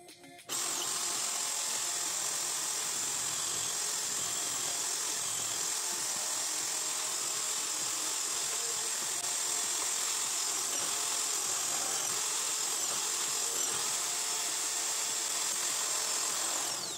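Electric hand drill mounted in a homemade drill-press stand, running steadily at constant speed as its bit drills holes into a board. It starts about half a second in and cuts off near the end.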